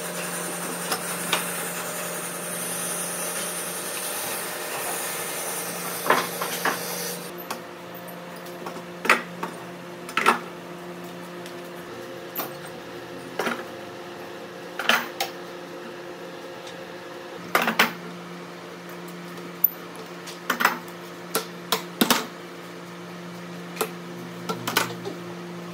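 Steel pipe clamps being set and tightened on a wooden table frame: scattered sharp metallic clicks and knocks every second or two. A steady hiss runs under them for the first seven seconds or so, then stops.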